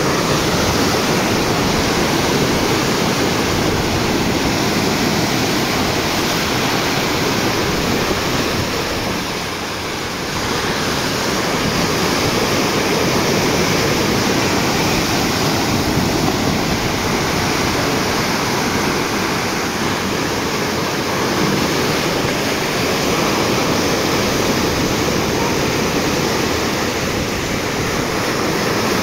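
Steady rush of sea water churning and foaming along the hull of a moving boat, dipping slightly about ten seconds in.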